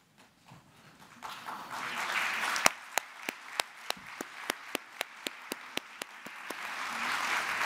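Audience applause that builds, dips, then swells again near the end. Through the middle, one person's sharp, close hand claps stand out, about three to four a second.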